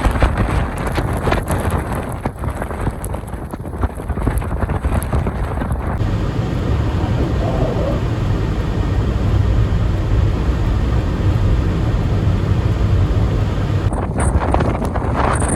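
Storm wind buffeting the microphone: a loud, rough low rumble that gusts in the first few seconds and runs steadier after about six seconds.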